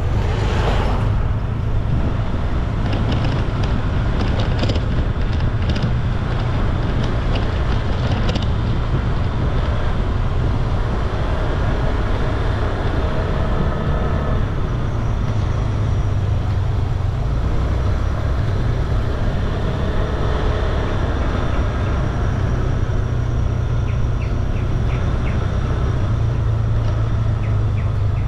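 Motor scooter ridden along a road, its engine running steadily under a heavy low rumble.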